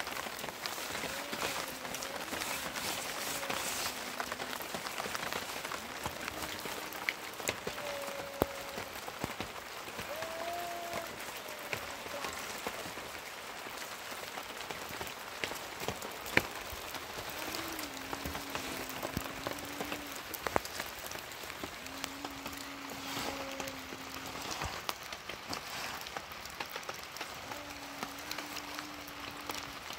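Steady rain falling, with a few sharp ticks, and some short held tones coming and going over it.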